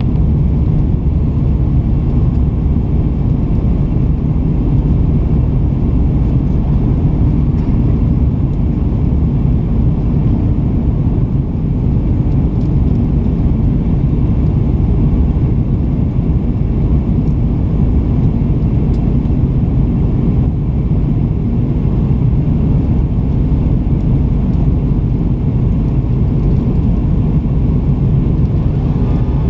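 Cabin noise of an Airbus A330's Rolls-Royce Trent 700 engines and the rushing airflow at climb-out: a steady, loud low rumble with a faint hum in it.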